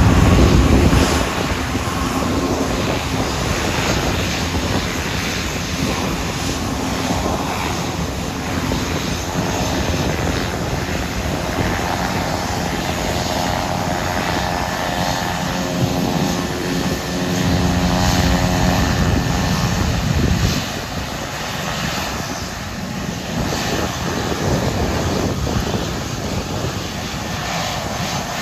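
Jet engines: a Gulfstream business jet's engines running loudly as it taxis close by for about the first second, then the steady rumble of an Airbus A320 at take-off power on its roll down the runway, with a whine coming in partway through and the sound swelling before it eases off about two-thirds of the way in.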